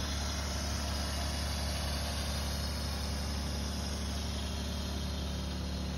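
Steady low hum of the hot tub's pumping setup running: a small electric water pump, its power supplied by a generator, holding an even, unchanging note.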